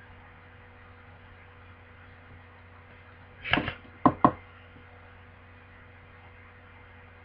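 Makeup things handled: a short clatter about three and a half seconds in, then two sharp clicks, as a pencil is put down and another picked up. A steady electrical hum runs underneath.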